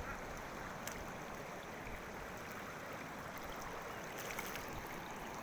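A river in flood rushing steadily, a continuous even rush of fast, high water swollen by heavy rain.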